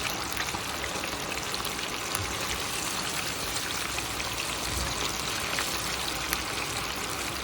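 Marinated chicken pieces frying in hot oil: a steady sizzle with scattered small crackles.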